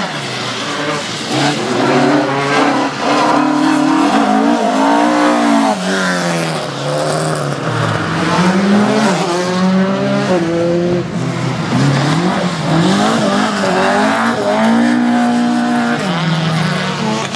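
Rally car engine revving up and down again and again, its pitch rising and falling in repeated surges, with some tyre squeal.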